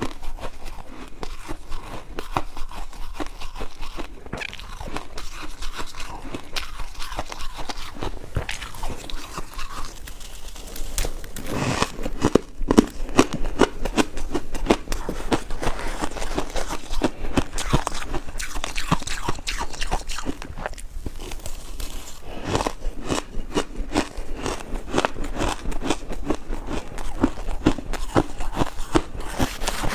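Ice cubes being bitten and chewed close to the microphone: a dense run of crunching and cracking, busier in the second half.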